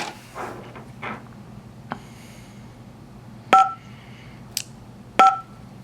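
Keypad beeps from a 2GIG alarm control panel as its on-screen buttons are pressed: two short two-tone beeps about a second and a half apart, with a couple of light clicks between them.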